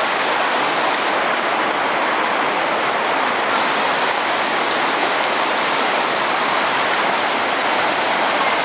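Steady rushing water, an even unbroken noise.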